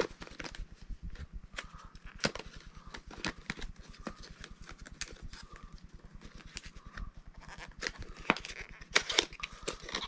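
Small cardboard box being handled and opened by hand: a scattered run of light clicks, taps and rustles of card and packaging.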